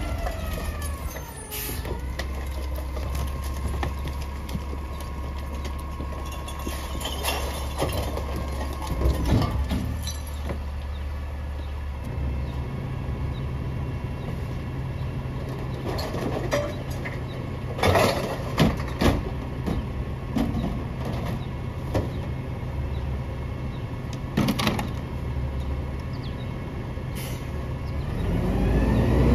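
Mack LEU CNG garbage truck with a McNeilus rear-loader body running steadily at the curb, its engine stepping up to a higher steady speed about twelve seconds in, with several sharp clanks and bangs as recycling is tipped into the hopper. Near the end the engine revs up and grows louder.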